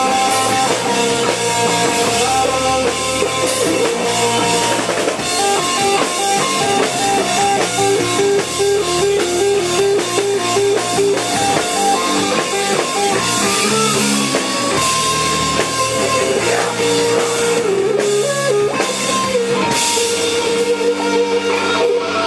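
Live stoner-doom rock band playing: distorted electric guitars and bass over a drum kit, loud and dense, with a repeating riff of alternating notes through the middle.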